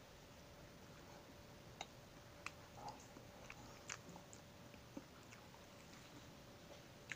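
Faint, sparse mouth clicks and smacks of a person chewing soft mamon sponge cake.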